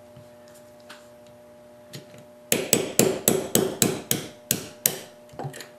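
Small hammer tapping on a Smith & Wesson M&P pistol frame: about a dozen quick, sharp taps, a few per second, starting about two and a half seconds in.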